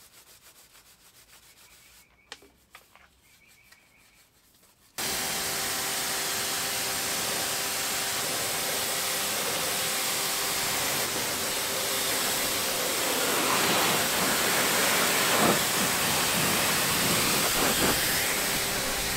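Faint scrubbing of a stiff bristle detail brush on degreaser-foamed plastic engine parts. About five seconds in, a pressure washer starts spraying water over the engine bay to rinse off the degreaser: a loud, steady hiss with a steady hum under it.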